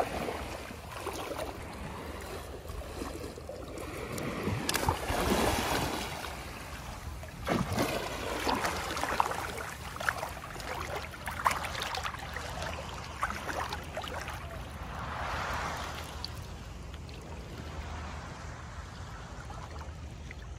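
Shallow seawater sloshing and splashing close by as a person wades and swims. There are several louder spells of splashing over a steady low wash.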